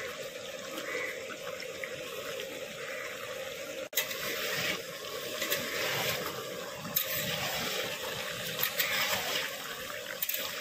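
Chicken pieces sizzling steadily as they are fried dry with spices in a large black kadai, with a metal spatula stirring and scraping through them a few times in the second half. There is a brief dropout and click about four seconds in.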